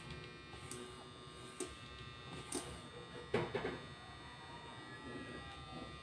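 Faint steady electrical hum and buzz, with a few soft clicks scattered through it.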